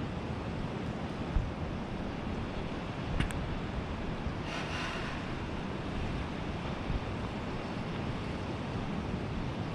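Wind buffeting the microphone over a steady rush of sea surf, with a few short low thumps from gusts and a brief louder hiss near the middle.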